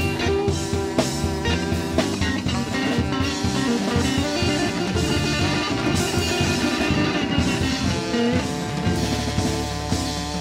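Live blues band playing an instrumental passage: electric guitar over a drum kit, with no vocals.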